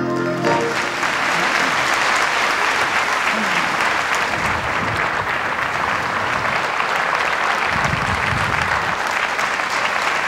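Theatre audience applauding: steady, dense clapping that starts as the song's last note ends about half a second in.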